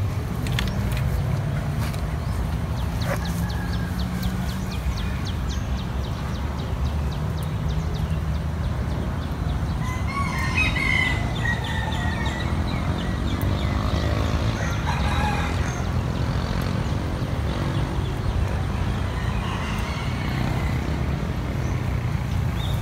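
A rooster crowing, about ten seconds in and again a few seconds later, over a steady low rumble.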